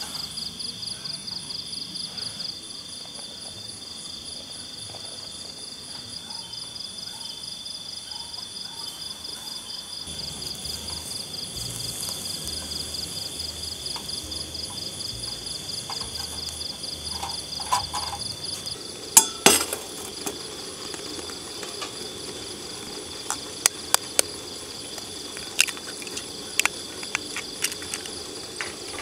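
Night insects chirping in a fast, steady trill. From about two-thirds of the way in, it is broken by a series of sharp metallic clinks, like utensils or cookware being handled.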